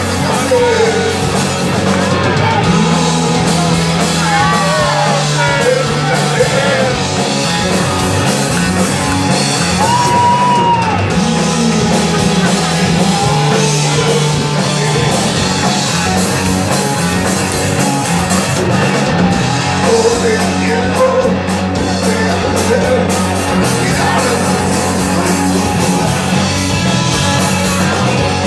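Rock band playing loud, with a singer's voice over guitar, bass and drums, the bass moving between held notes.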